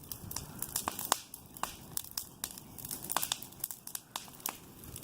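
Open fire of burning brush and debris crackling, with irregular sharp pops and snaps.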